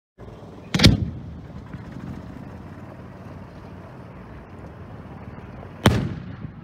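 Two loud booms about five seconds apart from a homemade aerial firework shell: the thump of it launching from its mortar, then the bang of the shell bursting, each trailing off in a short echo.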